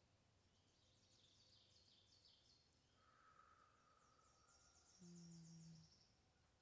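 Near silence, with faint high-pitched chirping in the background in two spells. A brief steady low hum lasting about a second comes about five seconds in.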